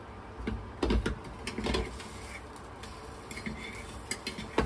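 A metal utensil clicking and scraping against a small nonstick frying pan: a few light knocks about a second in, scattered scrapes, and one sharper knock near the end, over faint steady background noise.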